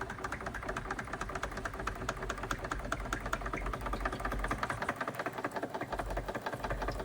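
Wilesco D32 toy steam engine running under steam for the first time after restoration: a rapid, even beat of small clicks from the cylinder and moving parts.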